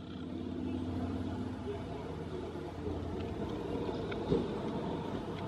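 Faint, steady low rumble with a few light ticks and one small knock about four seconds in.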